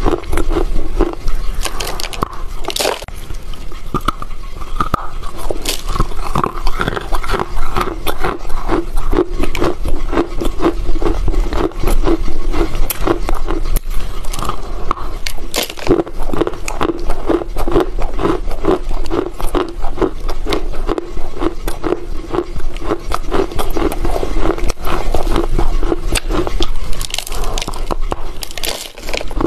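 A person biting and chewing a dry block of Chinese loess clay right at the microphone: a continuous run of dense, crackly crunching and scraping with no pauses.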